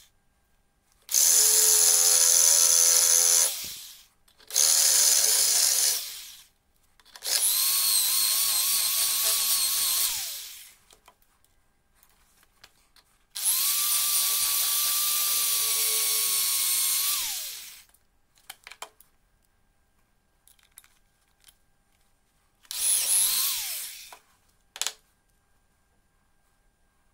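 Yellow corded Stanley electric drill drilling into a small part clamped in locking pliers, in five runs of a few seconds each, the motor's whine falling in pitch as it spins down after each run. A few light clicks between the later runs.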